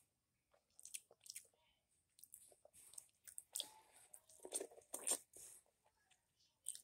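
Faint chewing and biting while eating, a string of irregular short smacks and crunches that is busiest in the middle.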